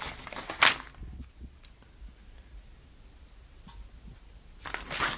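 Paper inserts and DVD packaging being handled: rustling with a sharp click under a second in, then a quiet stretch with a couple of faint ticks, and more rustling near the end.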